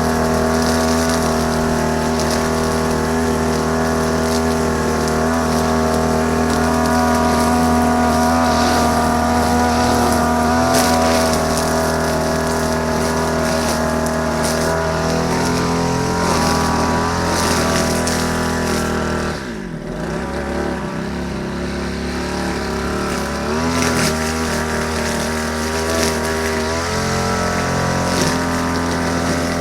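Small petrol engine of a grass-cutting machine running steadily at working speed. Its pitch dips sharply about two-thirds of the way through, then climbs back.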